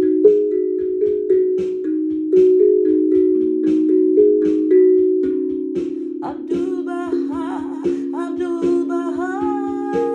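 Steel tongue drum struck with mallets in a quick, even stream of ringing notes, about three a second. About six seconds in, a wordless singing voice joins, holding long notes with a slow waver.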